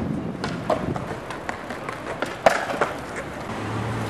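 BMX bike tyres rolling on skatepark concrete, with a run of sharp clacks and knocks from the bike; the loudest knock comes about two and a half seconds in. A low steady hum comes in near the end.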